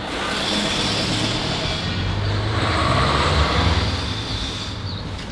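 A motor vehicle's engine running with a steady low rumble, growing louder for a couple of seconds in the middle and then easing off.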